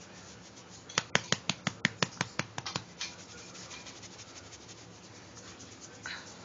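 A quick run of about a dozen sharp clicks over two seconds, coming slightly faster toward the end, then faint room noise.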